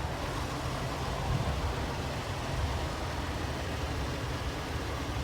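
Toyota 4Runner engine idling, a steady low rumble.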